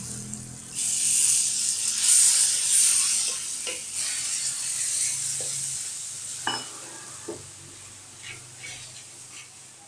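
Ground chili-and-garlic spice paste dropped into hot butter in a metal wok, setting off a loud sizzle about a second in that slowly dies down over the following seconds. A metal spatula stirs it, knocking and scraping against the wok a few times.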